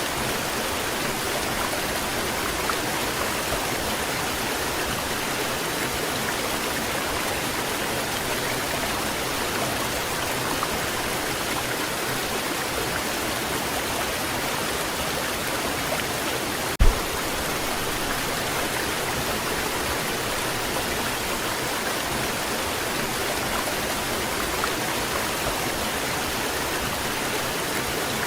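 Waterfall: a steady, even rush of falling water. One brief, sharp thump about seventeen seconds in.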